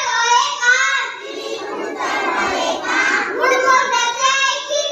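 A young boy's voice reciting a poem aloud.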